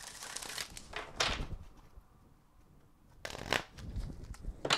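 A deck of oracle cards being shuffled by hand, the cards rustling and slapping together for about a second and a half, then, after a pause, a few more short shuffles near the end.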